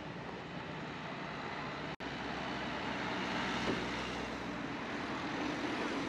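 Street traffic on the road beside the promenade: a vehicle passes, swelling to its loudest in the middle and easing off near the end, over a steady hum of traffic. The sound cuts out completely for a split second about two seconds in.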